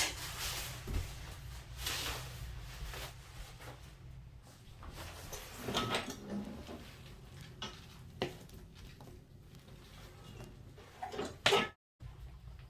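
Scattered knocks, clunks and rustles of someone working at a wood fire, handling wood and a stove door while trying to light damp wood. The loudest clunk comes near the end, and the sound cuts off abruptly.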